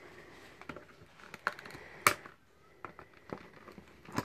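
Toy packaging being handled: light rustles and scattered small clicks of cardboard and card backing, with one sharper click about two seconds in.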